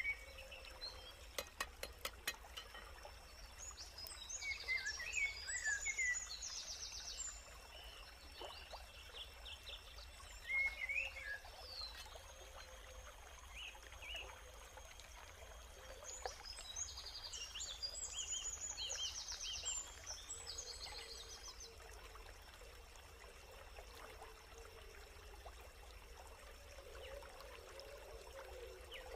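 Wild birds chirping and trilling in bursts, with two longer runs of fast trills, over a steady watery hiss. A few sharp clicks come about two seconds in.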